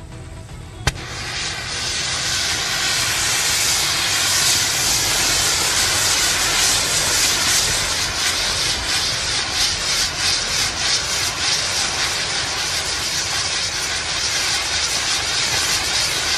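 Anar (Diwali fountain fireworks) burning: a sharp pop about a second in, then a loud, steady hissing rush as they spray sparks, with crackling through the second half.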